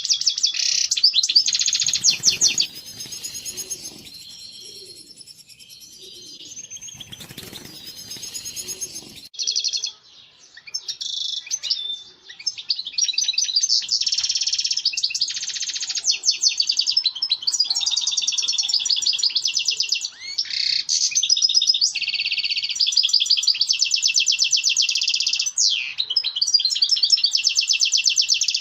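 European goldfinch singing its mating song, a fast, continuous twittering with rapid trills and buzzy notes. It eases off for several seconds near the start, then picks up again.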